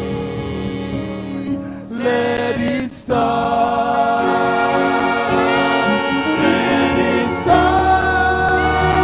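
Gospel choir singing with a horn section of trumpets and saxophones playing held chords behind the voices. The music breaks off briefly about three seconds in, then comes back fuller, and the horns swell louder near the end.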